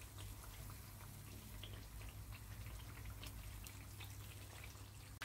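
Empanadillas deep-frying in sunflower oil at medium heat: a faint, steady, gentle bubbling with scattered small crackles and pops.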